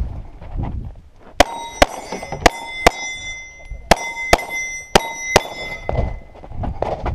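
Eight pistol shots in two quick strings of four, each followed by the ring of a steel target plate being hit.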